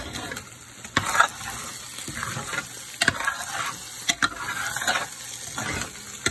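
Scrambled eggs with chopped leek sizzling in a metal frying pan while a metal spoon stirs them. The spoon clinks and scrapes against the pan several times.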